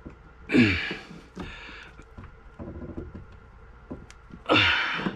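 A man grunting with effort twice, about half a second in and again near the end, each grunt falling in pitch, as he strains on a wrench to tighten a compression nut on a brass ball valve. Faint clicks come from the tools in between.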